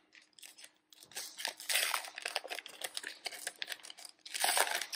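Foil wrapper of a Topps baseball card pack crinkling and being torn open by hand. It starts about a second in as dense crackling and has a louder tearing burst near the end.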